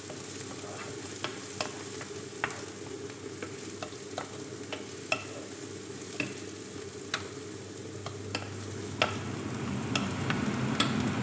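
Finely chopped onion sizzling in oil in a nonstick frying pan while a wooden spoon stirs it, knocking and scraping against the pan about once a second. The sizzle grows a little louder near the end.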